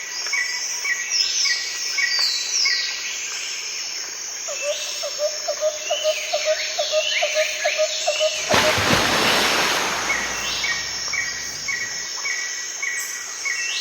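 Birds chirping and whistling with insects calling, with a fast pulsing call joining about a third of the way in. Past the middle, a loud even rushing noise comes in and lasts until near the end.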